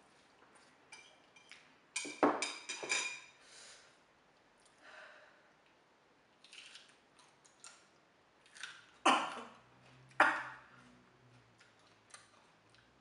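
A person eating spicy noodles: a burst of slurping with chopsticks clicking against the bowl about two seconds in, then two sharp, loud breaths through the nose about nine and ten seconds in, the heavy breathing of a mouth burning from chili heat.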